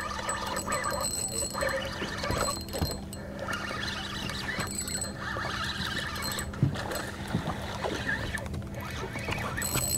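Spinning reel being cranked to retrieve line, its gears whirring and clicking, over a steady low hum.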